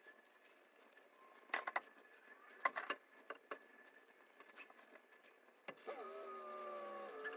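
Faint scattered clicks and taps, then about six seconds in a steady motor hum of several tones that sag slightly in pitch sets in.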